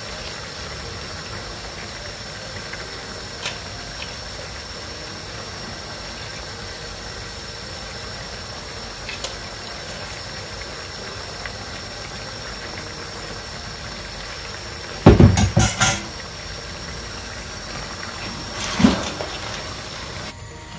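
Broth being ladled from a stainless steel pot over a pan of paella, over a steady hiss, with a few light clinks of the metal ladle. About fifteen seconds in there is a loud clatter of kitchen utensils against the pans, and another sharp knock near the end.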